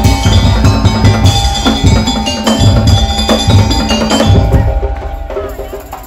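Madurese daul (tong-tong) percussion ensemble playing a fast rhythm: heavy drum beats under ringing, bell-like tuned percussion. The drums drop out and the playing dies down near the end.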